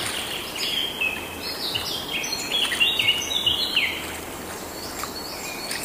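Birds chirping in quick, repeated high notes, busiest from about half a second to four seconds in, over the steady hiss of a shallow stream.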